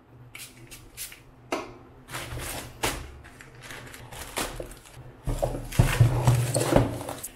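A pump spray bottle of sanitizer is spritzed a few times in short hissing puffs. Then a plastic courier mailer bag is torn open and a bubble-wrapped package is pulled out. The plastic crinkles and rustles, loudest near the end.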